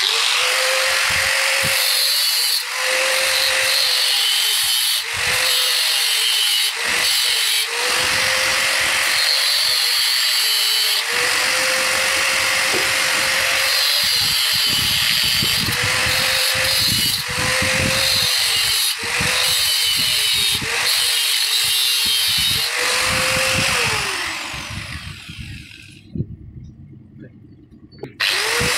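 Handheld electric power tool cutting through the thin steel wire spokes of a fan guard: a loud run of cutting noise over the motor's whine, which dips and picks up again a dozen or so times as it is eased off between cuts. Near the end it winds down and stops for a couple of seconds, then starts again.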